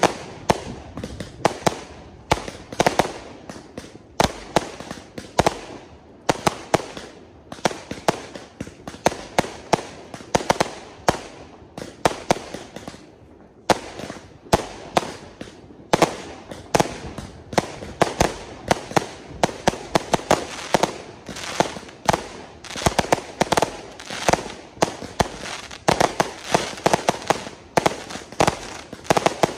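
Aerial fireworks firing shot after shot: sharp bangs of shells launching and bursting overhead in quick, irregular succession, with a short lull about halfway through.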